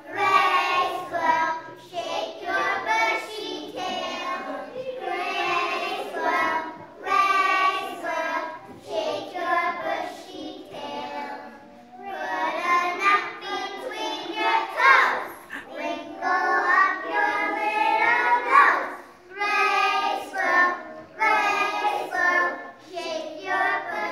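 A group of preschool children singing a song together, in short phrases with brief breaks between them.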